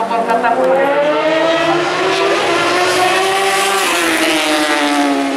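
A 1000cc four-stroke racing superbike accelerating hard past at close range. Its engine note climbs in pitch, then drops sharply as the bike goes by about four seconds in.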